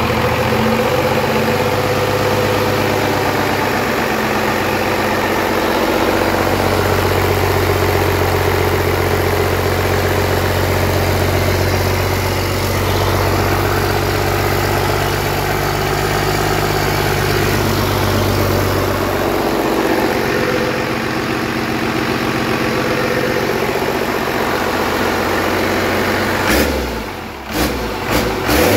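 Cummins 6BT inline-six turbo diesel engine running steadily at idle, fed by its freshly overhauled P-pump injection pump after many years without running. Near the end the sound dips briefly and there are a few knocks.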